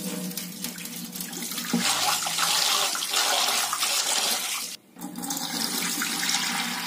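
Kitchen tap running into a stainless steel bowl of horse gram as the grain is rinsed by hand, with rinse water poured off into a steel sink. The water breaks off briefly about two-thirds of the way through, then carries on.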